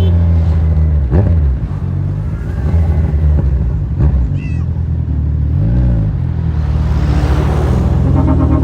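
Kawasaki Z1000 inline-four motorcycle engine running at low revs, with two short throttle blips that rise and fall in pitch.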